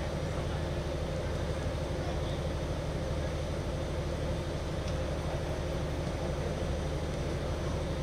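A steady low hum with an even background hiss, unchanging throughout.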